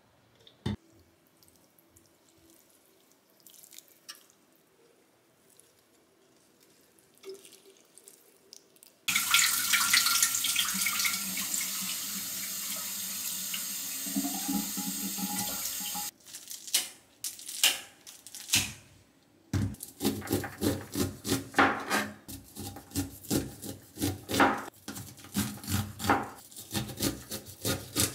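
A few faint clicks, then a kitchen tap running into a glass bowl as rice is washed by hand, cutting off suddenly when the tap is shut. After a few knocks, a knife cuts kernels off a corn cob on a cutting board in quick, repeated strokes.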